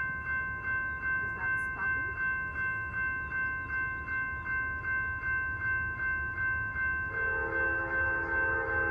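A railroad crossing bell rings steadily at about three strikes a second. About seven seconds in, an Amtrak P42DC locomotive sounds its multi-note horn, a long chord over the bell, as the Coast Starlight approaches through the station.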